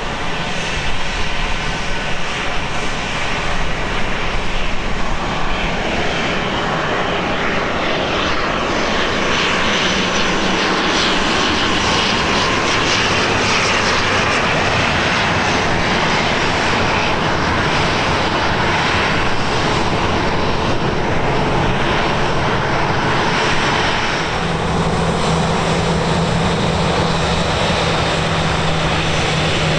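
Passenger airliner's engines running loud and close, a continuous rushing engine noise that holds steady, with a steady low hum joining near the end.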